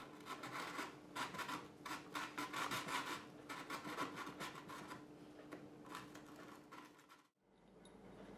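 A small needle file rasping in short, irregular strokes inside freshly drilled screw holes in a synthetic rifle stock, clearing burrs to leave the holes clean and smooth. The filing stops about seven seconds in.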